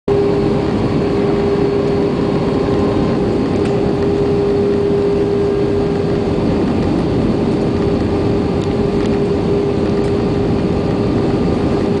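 Cabin noise of an Airbus A320 descending on approach, heard from a window seat over the wing: a steady rush of jet engine and airflow with one constant tone in it.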